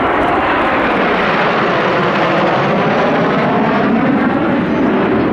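Kawasaki T-4 jet trainer flying past, its turbofan noise loud and steady while the pitch falls as it goes by.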